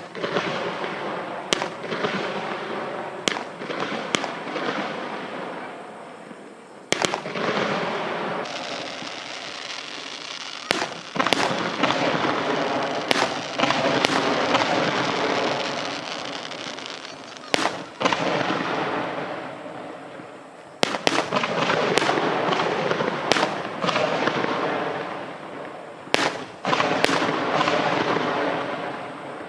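A waterborne star mine fireworks barrage: sharp bangs go off every few seconds, and dense crackling fills the gaps, swelling and fading in waves.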